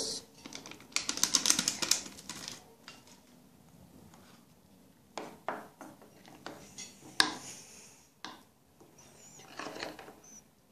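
Crinkling rustle of a small paper sachet of vanilla being torn open and shaken out, then scattered clinks and taps of a spoon against the mixing bowl of cake batter, the sharpest tap about seven seconds in.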